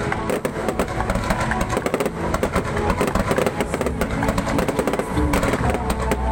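Fireworks going off in a dense run of rapid bangs and crackles, over music playing; a deeper rumble of booms joins near the end.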